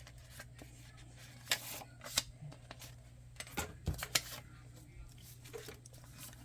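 Paper money and paper being handled at a table: light rustling with a few short, sharp taps and clicks, over a low steady hum.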